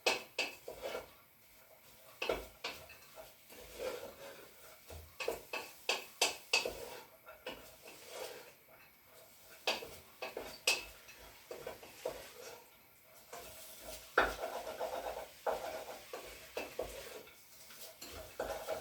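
A spoon stirring diced chicken and onion in a cooking pot, knocking and scraping against the pot in irregular clinks.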